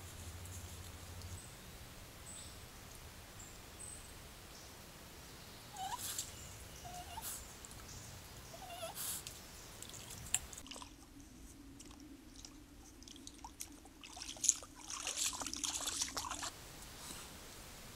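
Trail-camera audio of a shallow creek: a few short rising chirps and light splashes, then a stretch of dense splashing and clicking in the water that stops suddenly.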